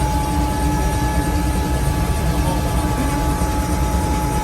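Helicopter running on the ground before lift-off: a steady low rotor and engine rumble with a constant high turbine whine over it.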